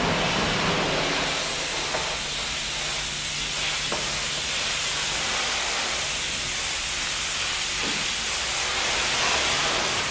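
High-pressure washer jet spraying water onto the wooden floor and side boards of a livestock truck's cargo bed: a steady hiss of spray with water splashing and pouring off, over a low steady hum.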